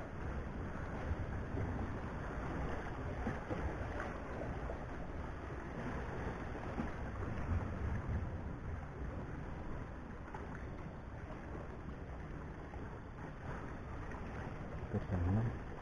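Wind rumbling on the microphone over gentle waves washing against the rocks of a breakwater, with a short louder low thump near the end.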